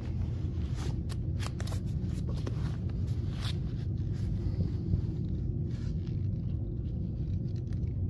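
Light footsteps and rustling from a handheld camera being carried, over a steady low rumble, with scattered short clicks in the first few seconds.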